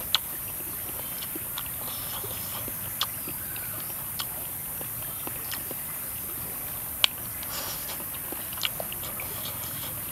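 Wooden chopsticks clicking against a metal frying pan while someone eats, a few sharp clicks with the loudest just after the start and about seven seconds in, over a steady high hiss.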